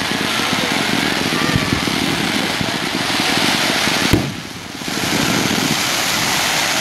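Fireworks volley: many comet and fountain effects firing at once, a steady rushing hiss full of crackles. A sharp bang comes about four seconds in, followed by a brief lull before the firing picks up again.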